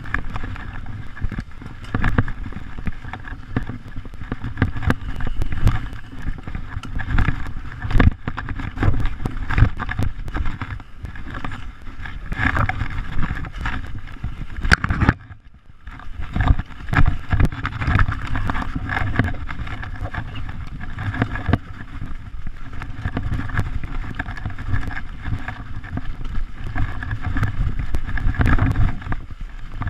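Mountain bike riding over a rough dirt trail: a continuous rumble of tyres and frame, with frequent rattles and knocks from the bike over bumps, and wind on the microphone. The noise drops briefly about fifteen seconds in.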